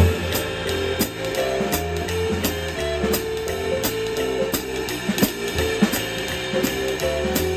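Acoustic drum kit played in a steady swing-jazz time feel, with cymbal strokes about twice a second, over a karaoke backing track with a stepping bass line and held chords.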